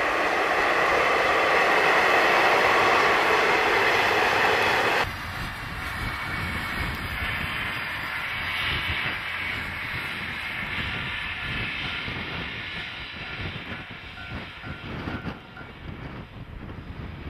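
Japanese KiHa 40/48 diesel railcars running on the track. A loud steady rushing train sound cuts off abruptly about five seconds in. After it comes a quieter running sound of the railcar that slowly fades as it moves away.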